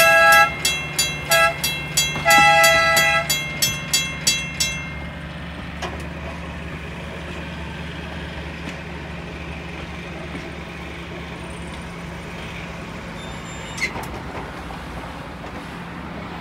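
A passing trolley car's horn sounds long, short, long over a grade-crossing bell ringing about three strikes a second. The bell stops about five seconds in, leaving a steady low hum.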